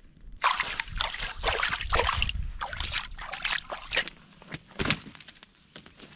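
Shallow creek water sloshing and splashing in irregular bursts for the first couple of seconds, followed by a few scattered knocks.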